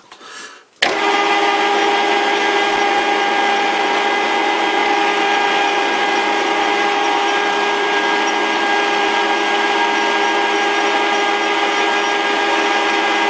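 Metal lathe starting up about a second in and then running steadily with a whine of several steady tones. A small centre drill in a tailstock drill chuck is being fed into the end of the spinning steel bolt.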